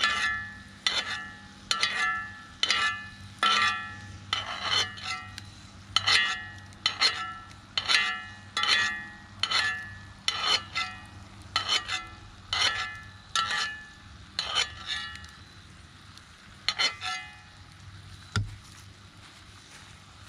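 A metal utensil clinking against a cast iron skillet, sharp ringing clinks about once a second, then stopping; one more clink and a dull knock near the end.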